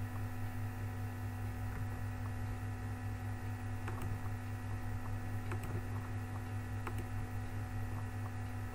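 Steady electrical hum on the microphone, with a handful of faint computer mouse clicks a second or more apart.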